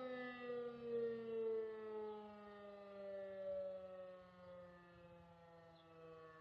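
E57 electro-mechanical siren winding down: its howl slides slowly lower in pitch and fades away.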